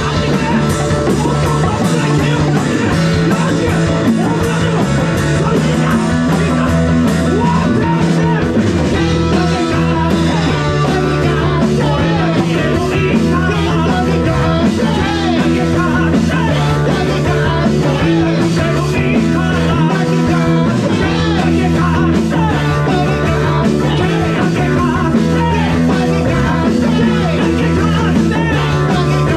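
Rock band playing: electric guitar, bass and drums at a steady, loud level throughout.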